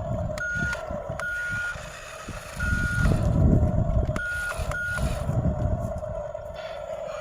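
Reversing alarm of a heavy construction vehicle beeping about five times at one steady pitch, over the low running of its engine.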